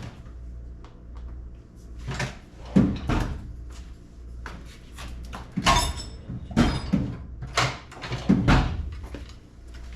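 Irregular knocks and clunks from handling hard parts at a car door, roughly eight spread over several seconds, with a steady low hum underneath.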